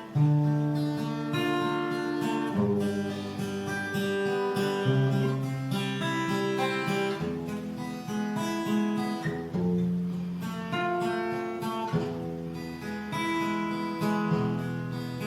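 Live band playing an instrumental passage of a dangdut song, guitar plucked and strummed over a bass line, the chords changing every second or two.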